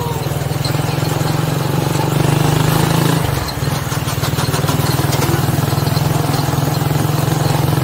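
Motorcycle engine of a sidecar tricycle running steadily under way, with a brief dip and fall in its note about three and a half seconds in.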